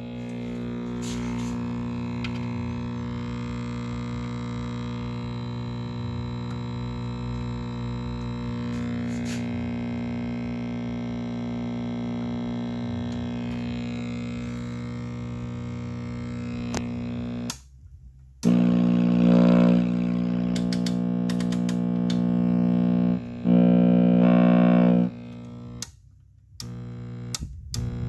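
Loud, steady mains hum-buzz from a 1969 Zenith portable tube TV's speaker. It cuts out about seventeen seconds in, comes back louder, and cuts out again a couple of times near the end. The buzz is supply ripple left unfiltered because the newly fitted filter capacitor was run without its negative grounded.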